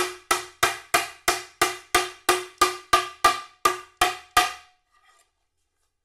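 A steel-headed hammer taps a wooden block at roughly three blows a second, each knock ringing briefly. The blows drive a hidden (mitred) dovetail joint home, seating the top panel of a solid-wood box. The tapping stops about four and a half seconds in.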